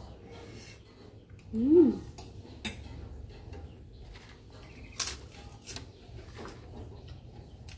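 Metal spoon clinking against a ceramic bowl and plate during a meal, in scattered sharp clicks, the sharpest about five seconds in. About two seconds in, the loudest sound is a short vocal sound that rises and then falls in pitch.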